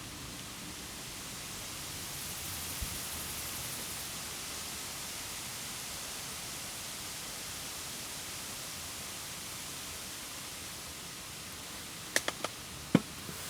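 Wood campfire burning: a steady soft hiss, with a quick cluster of three sharp pops near the end and then one louder pop.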